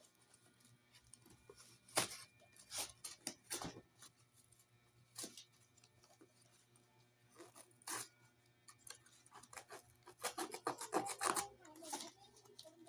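Cardboard box packaging being handled and worked open: scattered rubs, scrapes and knocks, with a dense run of scraping and rustling near the end.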